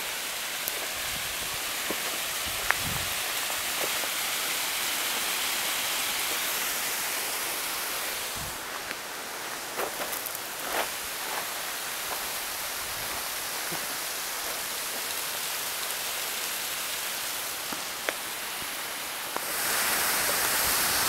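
A steady hiss of outdoor noise, like rushing water or rain, with a few faint clicks and taps. It grows louder near the end.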